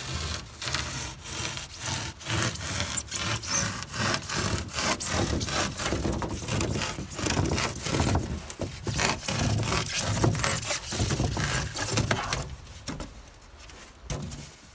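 Folding pruning saw cutting through pink rigid foam insulation board (Owens Corning Foamular extruded polystyrene), rasping in steady back-and-forth strokes about twice a second. The strokes stop near the end as the cut is finished.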